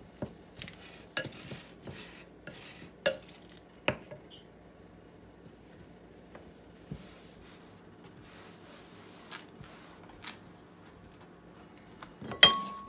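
Wooden spatula stirring and scraping a thick shredded-chicken and cream cheese filling in a glass bowl, with knocks against the bowl for the first few seconds. Then it goes quiet until a single sharp clink near the end.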